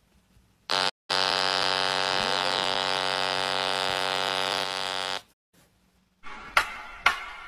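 A cracked smartphone's broken speaker giving a harsh, steady buzz: a short blip, then one unbroken drone of about four seconds that cuts off suddenly. About six seconds in, sharp beats of music begin.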